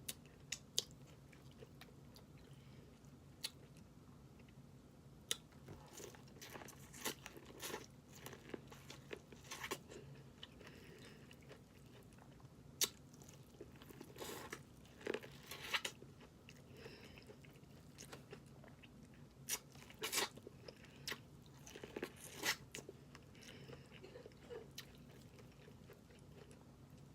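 A person eating food from a snow crab boil close to the microphone: quiet chewing broken by irregular crunchy bites and sharp mouth clicks.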